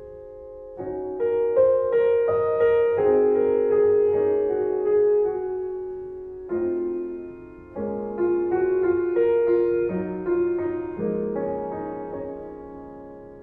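Background piano music: slow, sustained chords with a gentle melody, each phrase fading before the next begins.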